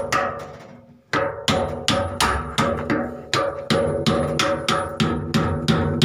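Hammer blows ringing on steel at the drum shaft of a heavy-duty washing machine, about three strikes a second after a short pause near the start. The blows are knocking at the flame-heated bearing lock to free the shaft for a new bearing, and it is not yet coming loose.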